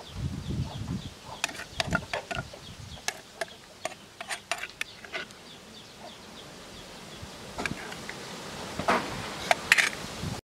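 A spoon mixing shredded green papaya salad in a bowl: a run of light clicks and wet taps for a few seconds, with a few more near the end. Behind it, a rapid high chirping, about four chirps a second, in the first two seconds.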